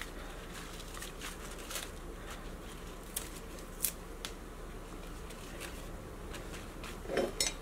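Hands handling wet lettuce leaves on a cutting board: scattered crisp crackles and rustles of the leaves, with a short louder sound near the end.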